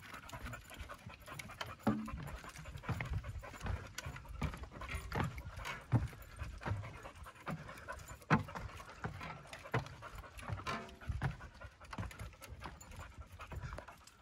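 Yellow Labrador retriever panting as it climbs, over irregular footsteps knocking and thudding on wooden stair treads.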